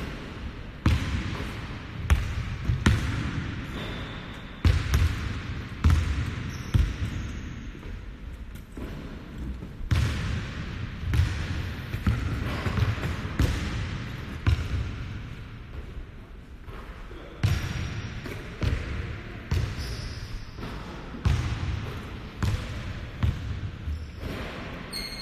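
Basketball bouncing on a hardwood gym floor: irregular thuds, roughly one a second, each dying away with an echo.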